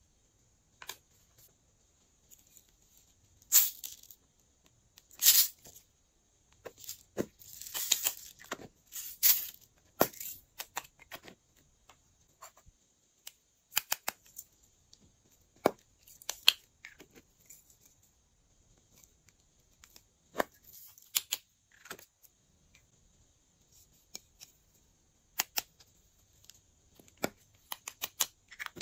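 Close-up handling sounds of slime making: irregular sharp clicks and taps of small plastic toys and tools, and short rustling, crinkling bursts as sequins and glitter are sprinkled into glass trays of white glue. A faint steady hiss lies under them.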